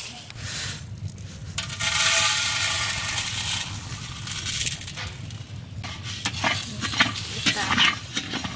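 Whole cumin, coriander and fennel seeds poured into a large, dry, hot metal kadai, with a dense rush of noise as they land, then a flat metal spatula scraping and stirring them against the pan with sharp clicks.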